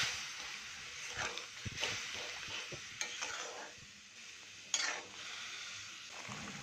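Boiled wax apples in syrup sizzling in a kadai over fried whole spices, stirred with a spatula: a steady hiss with a few scraping strokes, the sharpest about five seconds in.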